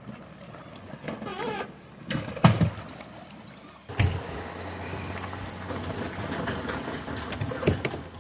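A steady engine hum comes in abruptly about four seconds in, after a single sharp knock.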